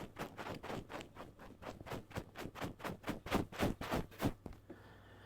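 A chisel's bevel being rubbed back and forth on a 16,000-grit water stone, a quick, even run of scraping strokes that stops about four seconds in. This is the polishing stage of the bevel, done after the burr has been raised.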